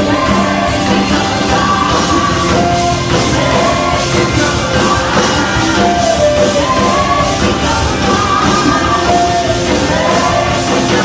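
Live contemporary worship band playing a loud rock-style passage without lyrics: drums keeping a steady beat under bass, guitars and a gliding melody line.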